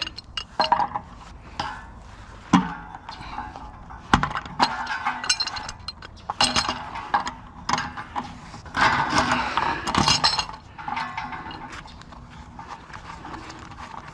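Metal hand tools clinking and knocking against the water heater's fittings, with a few longer stretches of scraping, as a brass fitting is worked loose.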